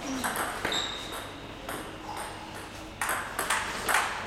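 Celluloid-type table tennis ball clicking off the bats and the table in a rally: a series of sharp ticks at an uneven pace, the loudest near the end.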